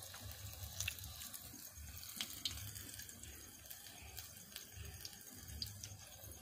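Methi na gota (fenugreek fritters) deep-frying in hot oil: a steady sizzle with scattered pops and crackles.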